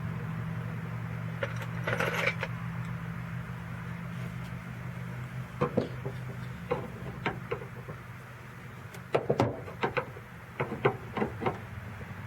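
Hand work on the exterior door handle linkage inside a 2010 Hyundai Accent's driver's door: a brief scrape about two seconds in, then scattered light clicks and knocks of plastic clips and metal rods being worked loose. A low steady hum underneath fades out about halfway.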